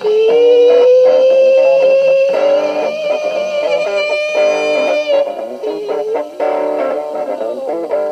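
Rock band playing, with a lead guitar holding one long note that bends slowly upward and sustains for about five seconds before the band carries on.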